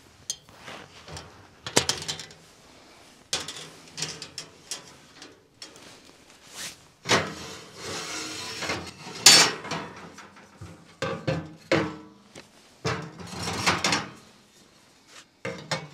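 Small sheet-metal wood stove being handled: a run of metal knocks, clatters and scrapes as stove-pipe sections are taken out of it and set on its top, with a longer scrape about halfway through.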